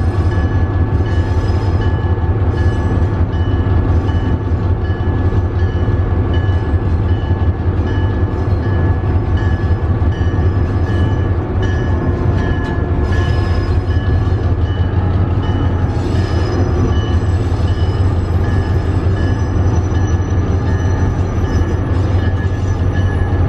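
Vintage electric locomotive running along the track, heard from inside its cab: a steady low rumble with a constant high whine over it.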